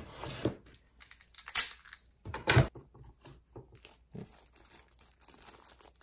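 A small cardboard box being opened and the plastic film on a USB charger inside it crinkled and torn. The noises are irregular, with the loudest about a second and a half and two and a half seconds in.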